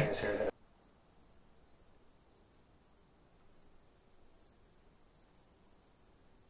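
Cricket chirping sound effect: a steady high trill with regular chirps, several a second, over dead silence. It cuts in abruptly as the room sound drops out, the comic 'crickets' cue for an awkward silence.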